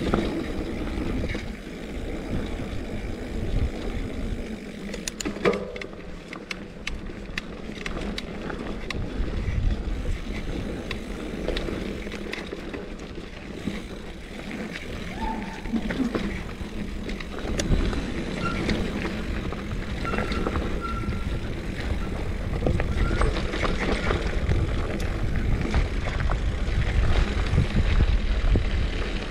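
Mountain bike rolling fast down a dirt singletrack: tyres running over dirt and roots, the bike rattling and clicking over bumps, with wind buffeting the microphone. Near the end the tyres run onto loose gravel and the rumble grows louder.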